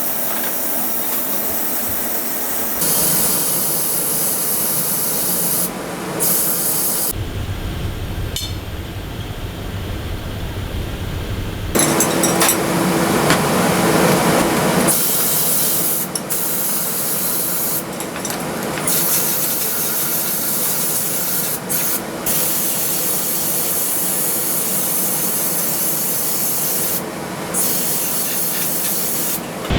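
Abrasive rust removal on rusty scooter metal: continuous rasping, scrubbing noise in a series of short takes that cut sharply from one to the next. One stretch in the middle sounds lower and duller.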